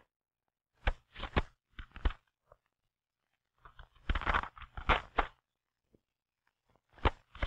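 Sheets of paper being fed into a manual typewriter: paper handling, the platen knob twirled and the paper bale set in place, heard as irregular clusters of clicks, clatters and rustling. The busiest stretch is a little past the middle.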